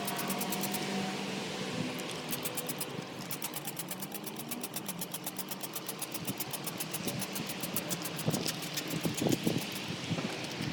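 Water being sprayed from a hand spray bottle onto a car body to wash off fake bird poop, with hiss and irregular splashes that grow louder in the second half. A steady, rapid mechanical ticking runs underneath.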